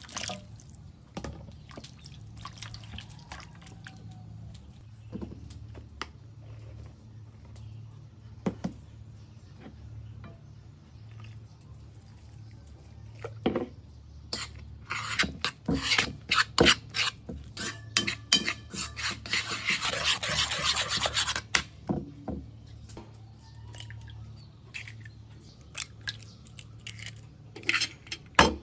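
Hands rubbing and scrubbing food over a bowl, with scattered clicks and knocks and a dense stretch of rubbing in the middle, over a steady low hum. Near the end, a sharp crack as an egg is broken on the rim of a metal bowl.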